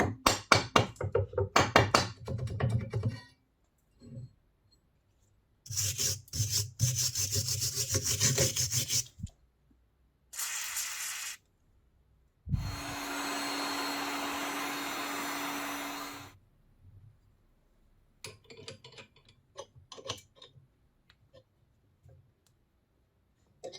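Hand and small power tool work on metal parts: quick scraping or filing strokes, then slower rubbing strokes. After that comes a short burst and about four seconds of a steady hiss with a hum, which could be a small power tool or a spray. A few light knocks and taps follow.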